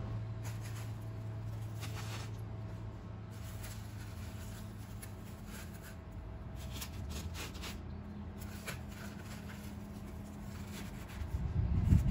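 Pandesal rolls being set down and arranged on a bamboo cutting board: scattered light taps and rustles over a steady low hum, with a louder knock near the end.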